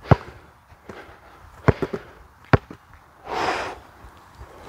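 Basketball bouncing on an outdoor court: three sharp bounces spread over the first two and a half seconds, with a couple of lighter taps just after the second, the dribbles a player takes before a free throw. A short rushing noise comes about three and a half seconds in.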